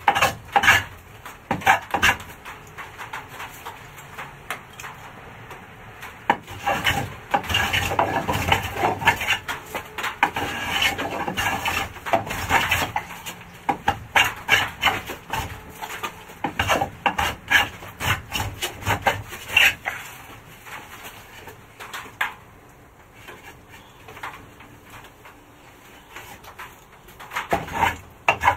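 Hand plane shaving the edge of a rough wooden beam in runs of short, quick scraping strokes, with a quieter stretch of several seconds near the end.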